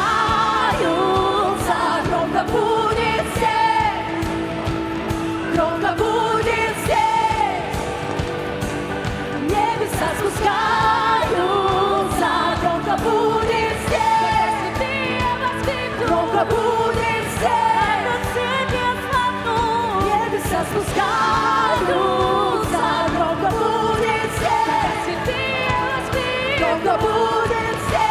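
Women singing an upbeat worship song into microphones, a lead vocalist with wavering, held notes and backing singers, over band accompaniment.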